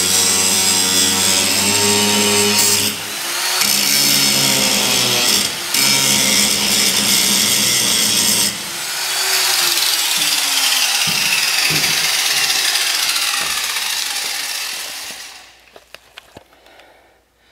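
Corded electric grinder grinding the excess threads off a stainless steel screw in the trailer wall. The loud, steady grinding dips briefly a few times and stops near the end.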